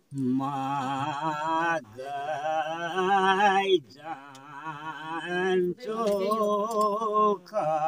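An elderly man singing a Nepali village folk song in four long phrases, his pitch wavering, with short breaks between them.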